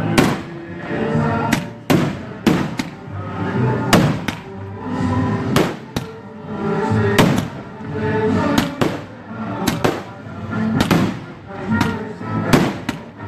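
Daytime aerial fireworks shells bursting in quick succession: about twenty sharp bangs at irregular spacing, one or two a second, with music playing underneath.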